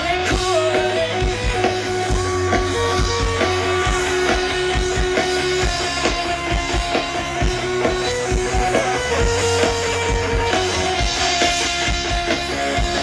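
Live rock band playing: strummed electric guitar over a steady drum-kit beat, with held notes.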